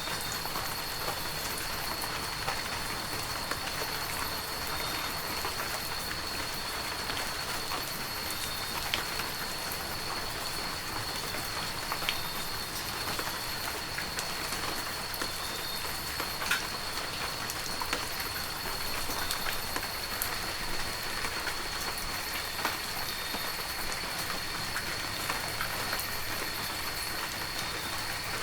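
Heavy rain falling steadily, an even hiss with scattered sharp ticks of individual drops striking a surface. A thin, steady high-pitched tone runs underneath.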